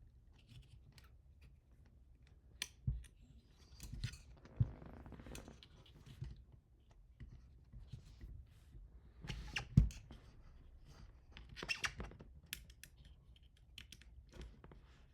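Irregular clicks, knocks and rubbing from parts and tools being handled while a 3D printer's Y-axis assembly is fitted to its frame, with the single loudest knock about ten seconds in.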